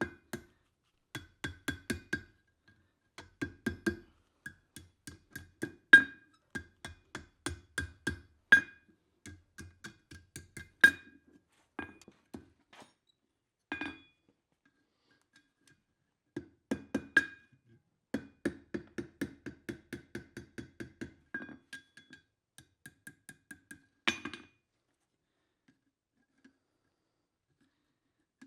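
Hammer blows on steel at an anvil, struck in quick runs of about four a second, each blow ringing with a clear tone. The runs pause and restart a few times, with a couple of harder single blows, and stop shortly before the end.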